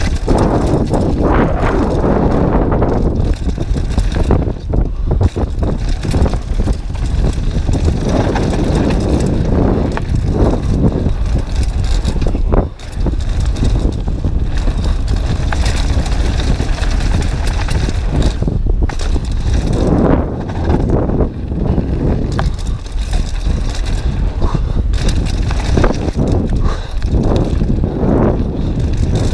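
Downhill mountain bike ridden fast down a gravel trail, heard from a camera mounted on the rider: steady wind rush on the microphone with tyre rumble and rattling over the loose gravel, with a brief lull about halfway through.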